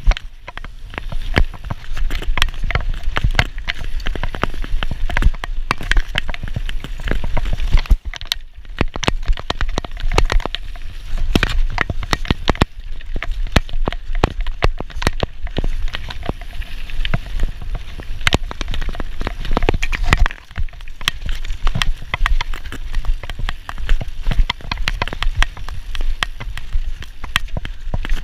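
Mountain bike ridden fast down a dirt trail: tyres crunching over loose dirt and stones, with a dense run of clicks and knocks from the bike rattling over bumps. Wind rumbles on the camera's microphone.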